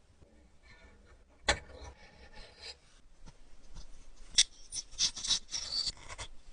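Close-up hand-tool work on small parts: a sharp click, another click a few seconds later, then a quick run of short scraping or rubbing strokes.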